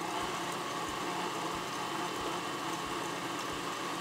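Electric stand mixer running steadily at speed, its flat beater churning butter and egg cake batter in a glass bowl.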